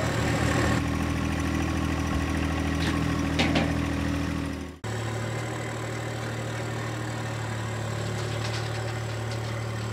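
Compact tractor engine running steadily. About halfway through the sound breaks off abruptly and the engine carries on with a slightly different steady note.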